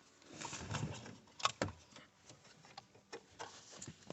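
Faint rustling and scattered small plastic clicks as the dimmer switch's wiring connector is handled and worked into place by hand.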